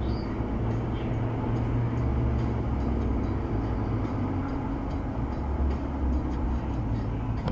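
Steady low rumble of a vehicle driving.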